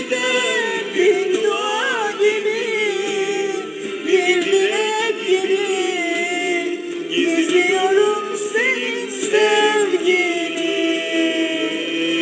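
A woman singing a Turkish song into a handheld karaoke microphone over instrumental backing music, with bending and long-held notes.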